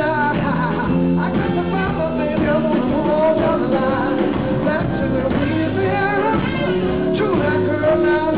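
A male lead vocalist singing live with a rock band, recorded from the audience on a fan's handheld camera.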